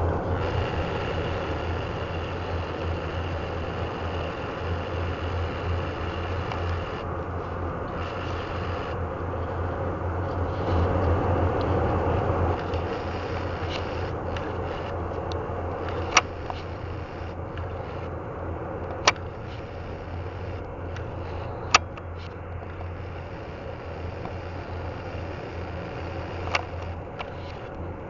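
Rolls-Royce Trent 7000 turbofans of an Airbus A330-900neo at taxi thrust: a steady rumble and hiss that slowly fades, with a few sharp clicks in the second half.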